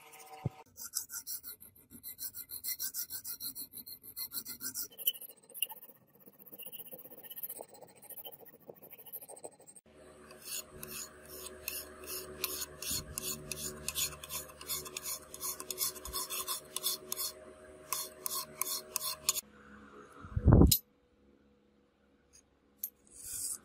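Flat hand file rasping across the steel edge of a small cleaver blade held in a vise, in quick back-and-forth strokes about three or four a second, pausing once in the middle. About twenty seconds in a single short loud knock stands out above the filing.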